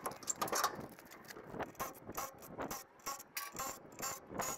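Irregular metal ratcheting clicks from a hand-worked ratcheting tool at a trailer wheel being jacked up and taken off.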